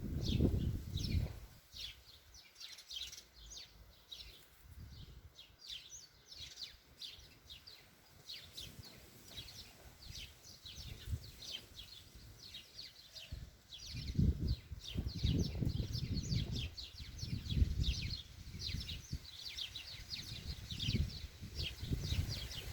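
Small birds chirping rapidly and continuously, with quick high down-slurred notes, while gusts of wind rumble on the microphone, strongest about a second in and again in the second half.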